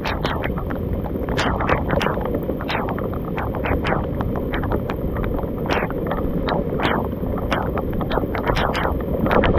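Wind rumbling on the microphone of a boat-mounted camera, with irregular sharp ticks and taps, about two a second.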